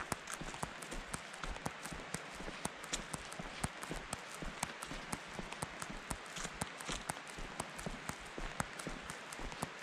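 A hiker's footsteps crunching on a gravel trail at a steady walking pace: a continuous run of small crunches and clicks over a steady hiss.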